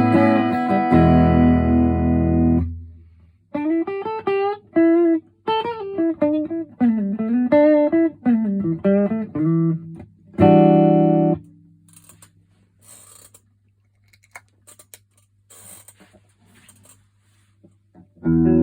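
PRS SE Custom 24 electric guitar through a Vox AC30 amp, played dry with the chorus pedal off. It rings out chords, then plays a single-note lead line with string bends and vibrato, and ends that line with one short chord. About seven seconds after that comes a low amp hum with faint clicks, and chords start again right at the end.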